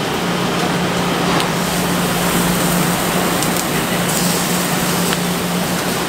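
Vegetables sizzling in a sauté pan on a commercial gas range, over a steady kitchen background noise with a constant low hum. A few faint clicks as pans are handled.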